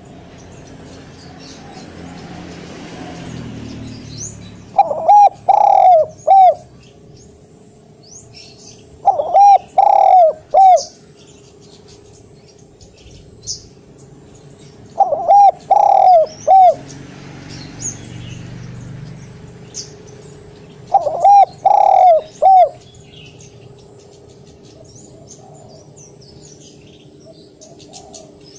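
Spotted dove cooing loudly: four phrases of several quick coo notes each, about six seconds apart.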